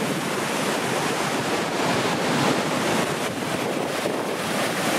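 Steady rush of Nevada Fall's water pouring over the lip, heard from the brink at the top of the fall, with wind buffeting the microphone.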